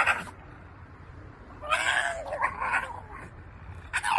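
Dog howling with its head raised: wavering calls about a second long that fall in pitch, one ending just after the start, another in the middle and a third beginning near the end.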